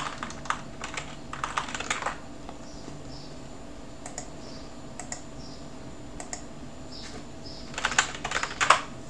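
Typing on a computer keyboard: a quick run of keystrokes in the first two seconds, a few single clicks in the middle, and another short burst of keystrokes near the end, over a faint steady hum.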